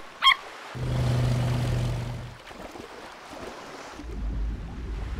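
A motor engine running with a steady hum for a second or two, then a deep low rumble, over a wash of water and wave noise.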